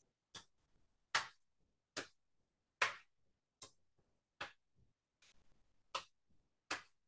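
Hands patting the knees, alternating left and right, in a slow steady rhythm: about nine short, soft pats, a little more than one a second.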